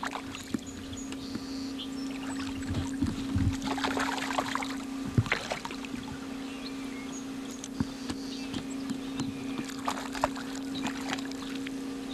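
A steady hum with scattered knocks and short splashy bursts as a hooked bass is fought on a bent rod and brought up to the side of an aluminium bass boat.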